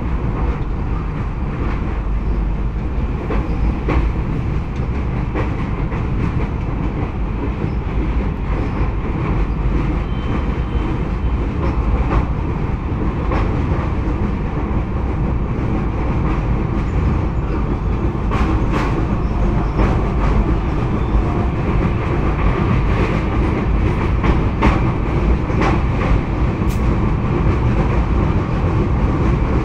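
Train running over a steel truss bridge, heard from on board: a steady rumble with irregular wheel clicks over the rail joints, more frequent in the second half.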